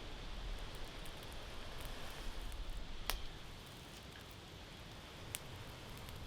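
Faint campfire crackling: scattered small ticks and two sharp pops, one about three seconds in and another past five seconds.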